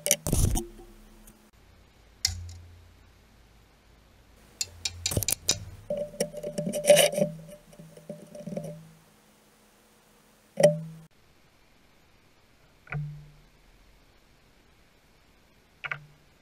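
Sparse plucked guitar music, its notes ringing out and fading. In the first half come a few sharp cracks and clinks of a glass pane being snapped apart along a score line.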